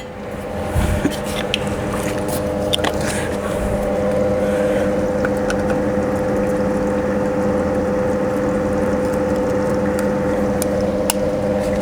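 Split air conditioner indoor unit powering up: its fan motor starts and builds over the first few seconds to a steady hum, with a few light clicks. The unit runs again now that the power transformer's open thermal protector has been bypassed.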